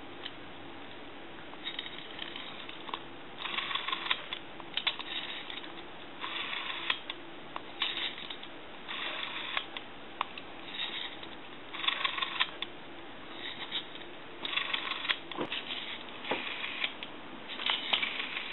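Western Electric rotary telephone dial being wound and let go again and again, giving a short whirring rattle each time the finger wheel runs back under its newly tightened return spring. There are about a dozen such bursts, a second or so apart.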